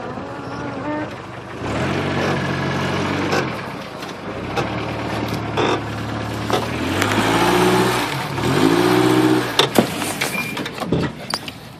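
A 1987 Toyota 4Runner's engine pulling the truck over dirt and leaf litter, revving up twice in the second half. A few sharp knocks near the end.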